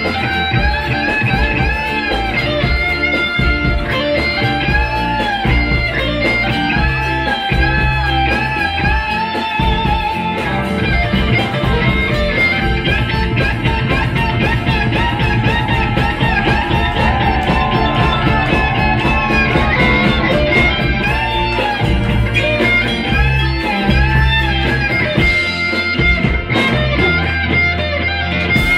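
Live rock band playing an instrumental passage on electric guitars, bass and drums, with a lead line of wavering, bent notes over a steady beat.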